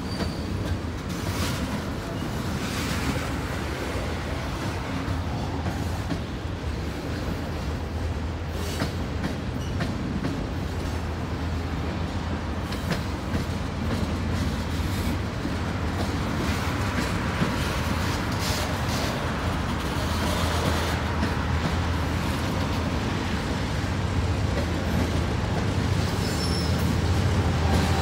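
Freight train rolling past: tank cars and freight cars rumbling steadily, with wheels clicking over the rail joints. A low hum builds toward the end as a Norfolk Southern GE diesel locomotive draws near.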